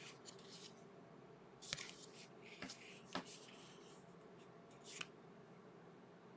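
Near silence with a few faint, brief rustles and clicks of trading cards being handled and flipped.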